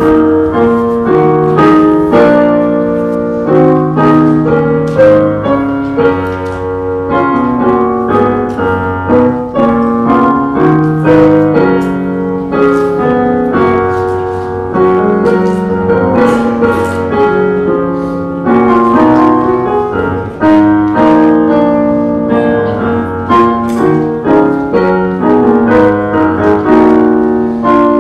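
Piano playing a flowing piece of chords under a melody, as a postlude closing the church service.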